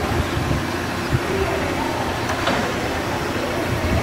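Grinding-wheel spindle of a Fortuna universal hydraulic cylindrical grinder running, a steady mechanical hum.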